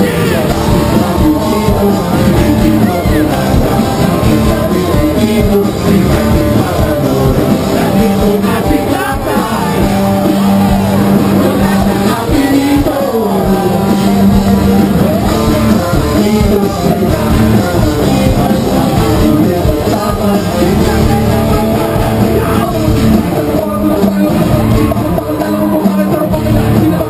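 Rock band playing live with a lead vocalist over drums, bass and electric guitar. It is loud and continuous, heard from within the arena crowd.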